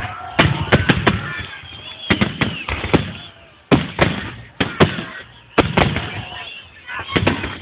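Fireworks salute: sharp bangs of shells bursting in irregular succession, at times several in under a second, with groups of two or three around 1, 2 and 7 seconds in.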